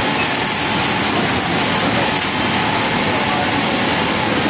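Kansai multi-needle industrial sewing machine running steadily as it stitches a knit waistband, a continuous mechanical whir with no stops, over the din of other machines.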